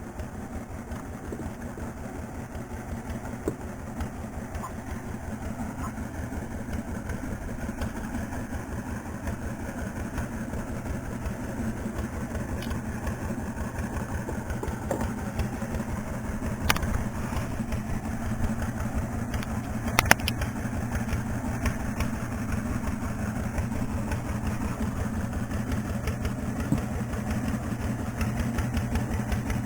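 A small boat engine running steadily with an even low chugging pulse, growing slightly louder over the stretch. Two sharp knocks come in about two-thirds of the way through.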